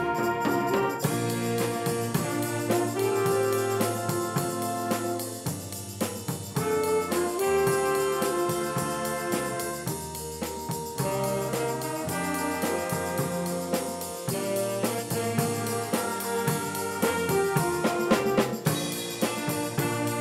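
School jazz big band playing: saxophones, trumpets and trombones holding sustained chords over a drum kit keeping a steady beat.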